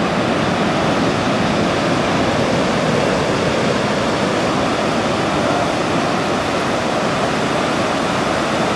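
Ocean waves breaking on a beach: a steady rush of surf and whitewash.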